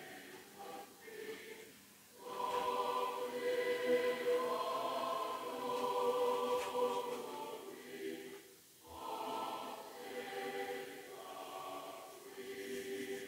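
A choir singing long, sustained phrases. The sound breaks off briefly about two seconds in and again near nine seconds.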